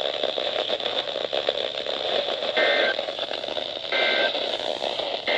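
NOAA weather radio receiving a weak, static-filled signal. About two and a half seconds in come three short, warbling data bursts about a second apart: the EAS (SAME) end-of-message tones that close the weekly test.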